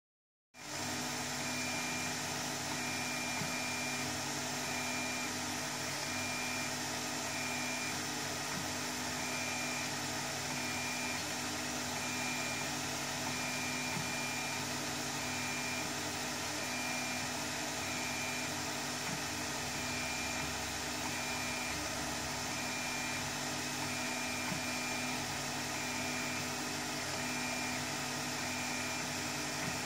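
Tevo Tarantula 3D printer running a print: a steady fan whir, with a high motor whine that switches on and off in short stretches as the print head and bed move.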